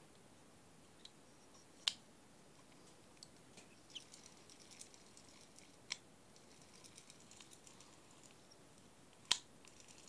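Shakespeare Wonderspin 2661 spincast reel being handled and worked: three sharp mechanical clicks, the loudest near the end, with faint light ticking between them.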